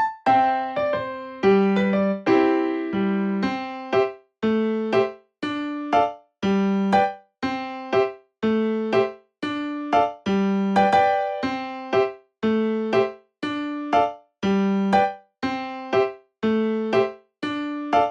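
Background music: a gentle piano tune of short, evenly spaced notes and chords, each ringing out and fading.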